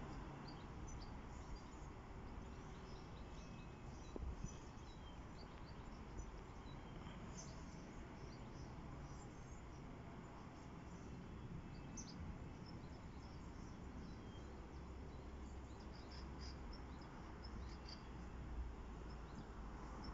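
Faint outdoor ambience: distant small birds chirping here and there, over a low rumble of wind on the microphone.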